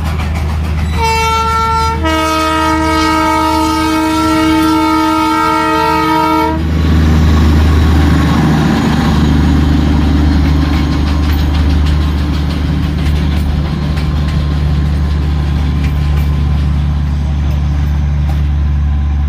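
Darjeeling toy train sounding its horn: a short blast, then a longer, lower blast lasting about four seconds. After that comes the steady low rumble of the train.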